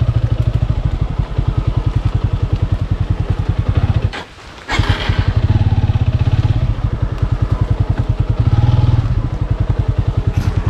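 Motorcycle engine running with a steady, evenly pulsing beat, swelling louder a couple of times, with a brief half-second drop in sound about four seconds in.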